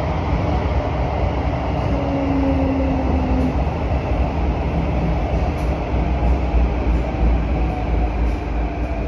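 Interior running noise of a Kawasaki & CRRC Sifang CT251 metro train moving through a tunnel: a steady low wheel-and-rail rumble with faint steady tones above it.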